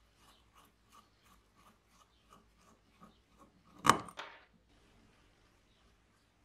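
Screwdriver turning a small screw out of a hand-cranked grinder's cast metal gear cover: faint ticks about three times a second as it turns. Just before four seconds in comes a sharp metallic clatter with a short ring as the freed screw drops onto the cover.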